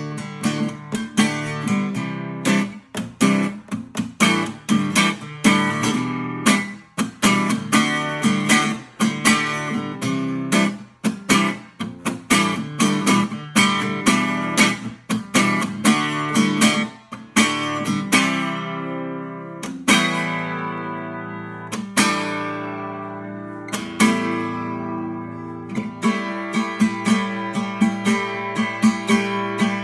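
Acoustic guitar strummed in a steady rhythm. About two-thirds of the way through, the strumming thins to a few single chords left to ring, then picks up again near the end.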